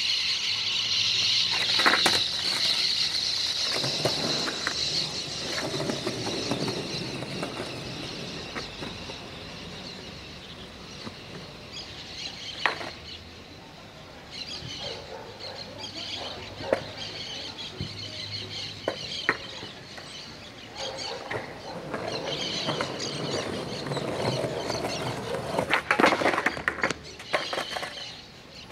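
Skateboard on concrete: several sharp clacks of the board's tail and deck striking the ground during kickflip attempts, with a dense clatter of impacts near the end. A steady high-pitched drone sits in the background, strongest at the start and again toward the end.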